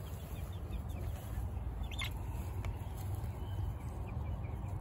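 Young Wyandotte and Black Australorp chicks peeping faintly, short high chirps scattered through, with a brighter cluster about two seconds in, over a steady low rumble.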